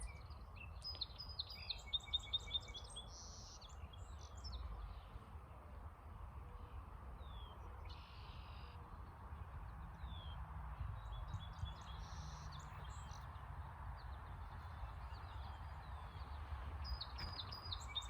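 Wild birds chirping and calling in short high phrases, busiest in the first few seconds and again near the end, over a steady low rumble.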